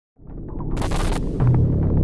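Cinematic intro sound design for an animated logo reveal: a deep rumbling swell rising out of silence, a rushing whoosh about a second in, then a steady low electronic hum.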